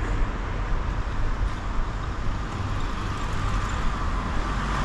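Road traffic passing on a busy street: a steady, even noise of car and truck engines and tyres, heard from the pavement beside the road.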